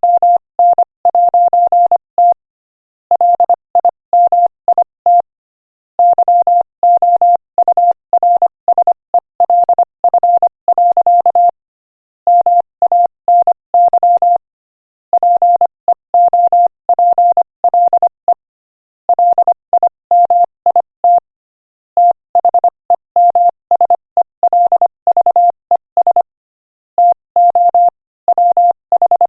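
Morse code sent at 25 words per minute: a single steady beep tone keyed on and off in dots and dashes, spelling out an inspirational quotation, with brief pauses between words.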